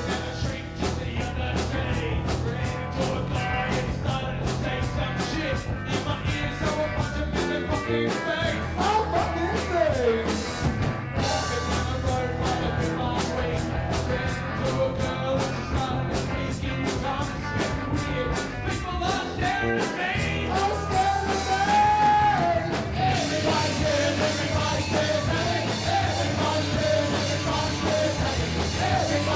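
Live rock band playing with drums, guitar and bass, a steady beat throughout, and a voice singing in places.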